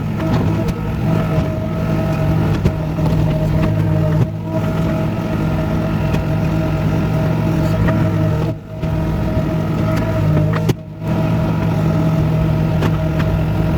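A vehicle engine running steadily, with two brief drops in level, one a little past halfway and one shortly after.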